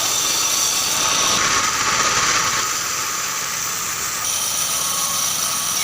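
Band sawmill running, a steady machine noise with a high whine whose tone shifts slightly a few times.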